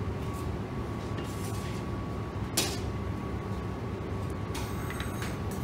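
Steady low room rumble with a faint steady hum, and one sharp click about two and a half seconds in.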